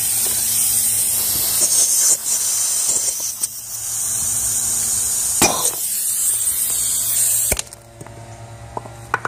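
Compressed air hissing loudly from a blow gun into a dual-piston brake caliper's bleed opening, forcing the second piston out of its bore. There is one sharp knock about five and a half seconds in, and the hiss cuts off suddenly near the end.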